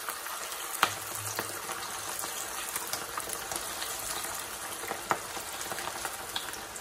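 Hot oil sizzling and crackling steadily as pork meatballs deep-fry in a pot, with two sharper pops, about a second in and about five seconds in.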